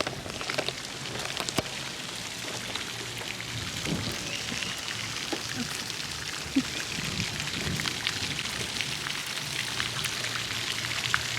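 Steady patter of falling water: many small drops splashing.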